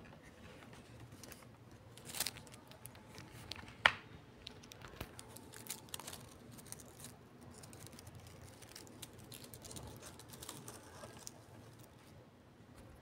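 Small objects being handled: a run of light clicks, taps and crinkling, with a sharp click about four seconds in.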